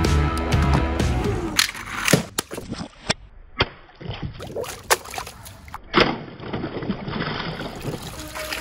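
Water sloshing and splashing in a plastic basin as toy vehicles are moved through and dipped into it, with several sharp splashes.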